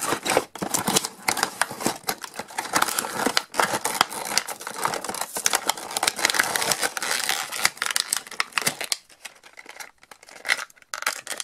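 Cardboard packaging and a plastic bag being torn and crinkled as a toy figure is pulled out of its box: dense rustling and crackling that eases off near the end.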